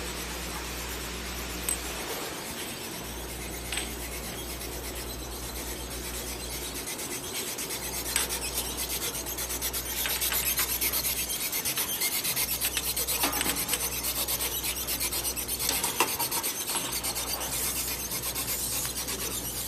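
Bottle packaging line running: a slat-chain conveyor carrying amber capsule bottles past an induction cap sealer and a labelling machine. It makes a steady mechanical noise with a low hum that cuts out briefly every few seconds and fast fine ticking in the second half.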